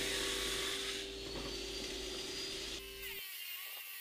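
Homemade table saw's spinning blade cutting through a wooden board, a steady running sound with a few held tones. It weakens after about a second and changes abruptly and gets quieter near the end.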